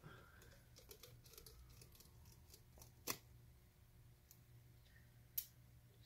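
Near silence with a couple of faint, sharp clicks from a T5 Torx precision screwdriver backing a tiny screw out of a laptop logic board and the screw being handled.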